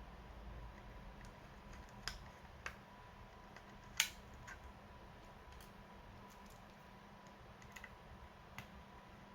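Sparse light clicks and taps of laptop parts and tools being handled, about half a dozen, the loudest a sharp click about four seconds in, over a faint steady hum.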